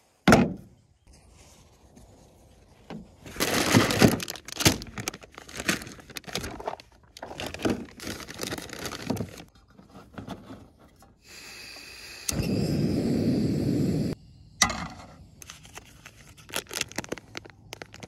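Handling sounds from setting up a single-burner camp stove: the metal stove head clinking and scraping as it is fitted onto a Coleman propane canister on a plastic truck-bed liner, with plastic bags rustling. A sharp knock right at the start, and a couple of seconds of steady rushing noise a little past the middle.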